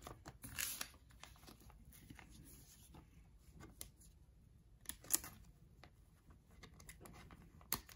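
Baseball trading cards being handled: faint rustling with a few sharp clicks, one about half a second in, one about five seconds in and one near the end.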